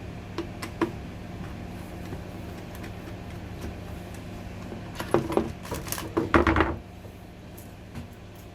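Metal parts of a dismantled fan heater clinking and clattering as they are handled, with a burst of knocks and rattles about five to seven seconds in.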